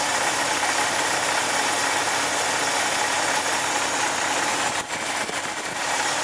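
Jeep 4.0 inline-six engine idling steadily, with a cyclic tick that is hard to make out, which the owner suspects is a worn, stretched timing chain. The sound dips briefly a little under five seconds in.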